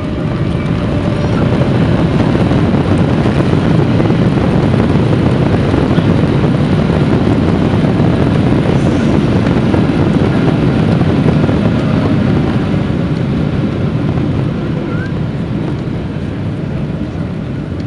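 Boeing 777-300ER landing: a loud, steady, deep jet rumble that builds during the first couple of seconds, holds, and eases off after about twelve seconds.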